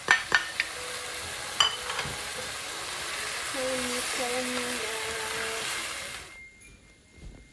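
Chopped vegetables and chicken sizzling in a hot wok, tipped in from a plate and stirred with a wooden spatula, with a few sharp taps of the spatula in the first two seconds. The sizzling cuts off suddenly about six seconds in.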